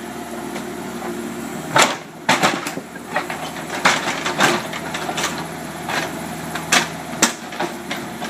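Backhoe engine running steadily while its bucket breaks up concrete, with about eight sharp cracks and knocks at uneven intervals.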